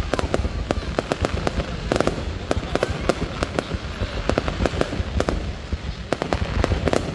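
Fireworks display going off: a dense, continuous run of sharp bangs and crackling pops over a steady low rumble.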